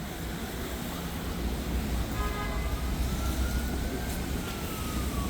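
City traffic rumble, with an emergency-vehicle siren wailing in about two seconds in, its pitch slowly rising and then falling.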